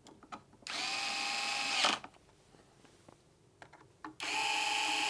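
Electric screwdriver driving screws into a metal battery plate: two runs of a steady motor whine, each a little over a second long. The first stops about two seconds in; the second starts near the end. Faint clicks come in between as the bit is set on the next screw.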